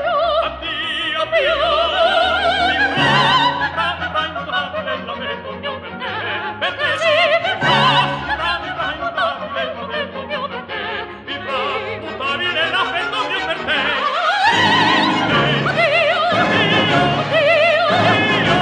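Operatic voice singing with a wide vibrato over an orchestral accompaniment.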